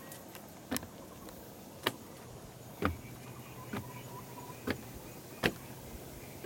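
Footsteps climbing wooden stairs: a steady series of footfalls on the wooden treads, about one a second.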